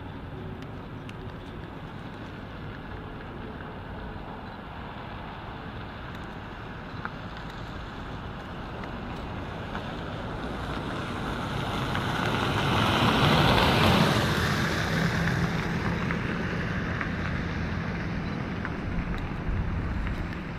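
A motor vehicle passes: a steady engine hum swells to a loud peak about two-thirds of the way through, then eases off while a steady low engine tone carries on.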